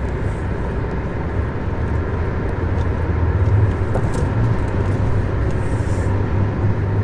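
Steady low rumble of engine and tyre road noise from a vehicle driving at speed, heard from inside the cabin.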